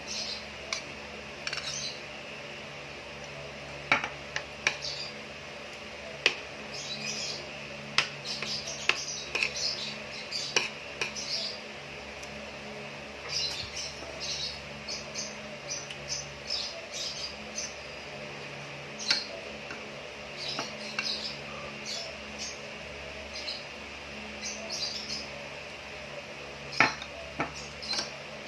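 Close-up eating sounds: irregular wet mouth clicks and lip smacks of chewing, with sharp clinks of cutlery on a plate now and then. A steady low hum runs underneath.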